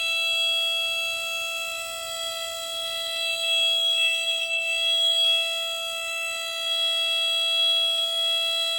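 Lurton S-103 photoelectric smoke alarm sounding one continuous, high-pitched alarm tone. It is a false alarm, which the owner puts down to pieces of its broken filter blocking the light in the sensor just enough to trigger it.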